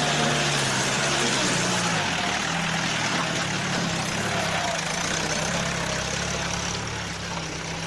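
A vehicle engine running at a steady pitch, with a broad rushing hiss over it.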